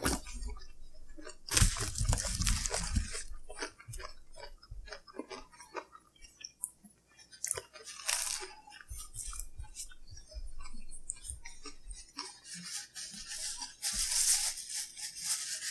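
Close-up chewing and crunching of a BLT sandwich with crispy bacon, and of tater tots, in a run of small crackles, with bursts of paper napkin rustle, the last about fourteen seconds in.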